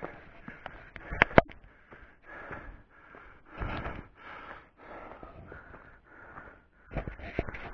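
A man breathing hard from climbing a steep trail, with rapid, audible breaths in and out about once a second. Sharp knocks come about a second in and again near the end.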